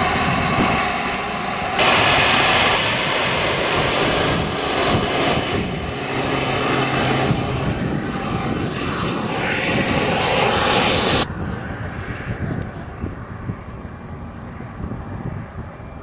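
Radio-control model jet's small turbine engine running loud, with a high whistling whine that dips and then climbs back up in pitch. About eleven seconds in the loud sound stops abruptly, leaving a quieter, steady turbine whistle.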